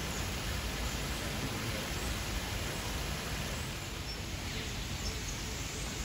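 Steady rushing outdoor background noise, with a few faint bird chirps in the second half.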